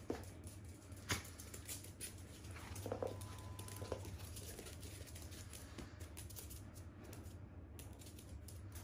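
Small dogs' claws tapping and scrabbling on a laminate floor as they play, with a sharp knock about a second in.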